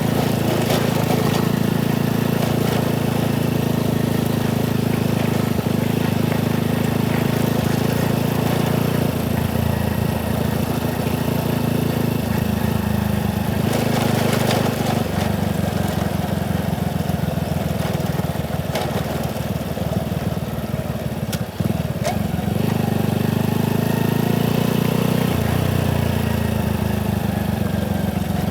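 Motorcycle engine running steadily while riding, its note shifting several times as the throttle changes, with a light rushing noise over it.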